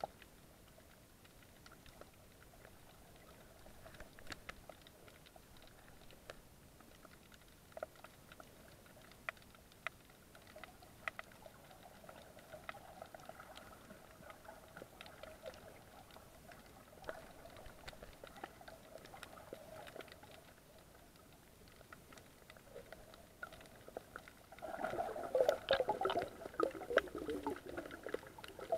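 Underwater sound picked up by a camera in its housing: a faint hiss with scattered sharp clicks and a faint steady hum. About 25 seconds in, a louder burst of bubbling takes over for the last few seconds.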